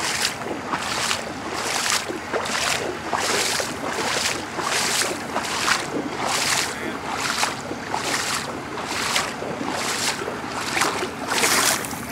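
Legs in waders pushing through floodwater: a regular swish and splash with each stride, a little more than one a second.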